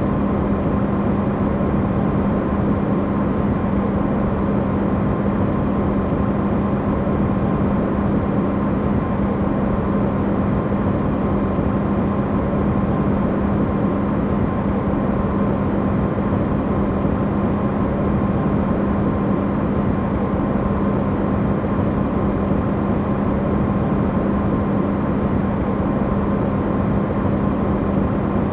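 Electrolux refrigerator running, recorded amplified: a steady hum with a constant low tone over an even hiss.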